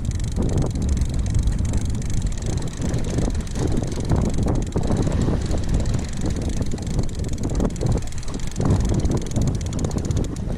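Wind gusting and buffeting the microphone, over the wash of choppy sea water against the boat's hull.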